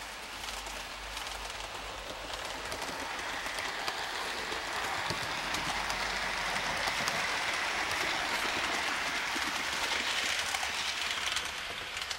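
Model electric train with double-deck coaches running along the layout's track: a steady rolling of small wheels on the rails and a whirring that grows louder as it approaches and passes close by.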